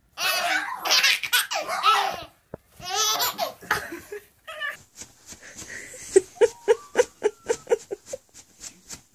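A baby belly-laughing in two long bouts over the first four seconds. After that come quieter, short pulsed sounds, about three a second.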